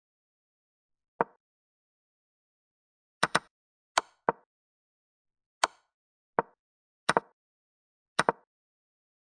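Chess pieces being set down on a chessboard: about eleven short, sharp clacks at irregular intervals, several coming in quick pairs, as pieces are moved and placed.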